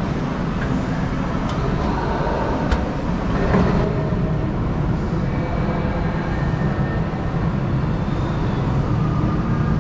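Steady low rumbling background noise of a shopping mall, with no single clear source.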